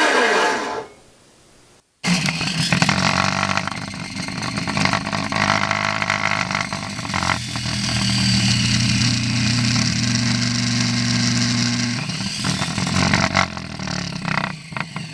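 Chop saw motor spinning down with a falling whine in the first second. After a break it runs at full speed again, the blade cutting into a deck of playing cards with a rough noise over the motor's steady hum, then winds down about thirteen seconds in, with a few sharp clacks near the end.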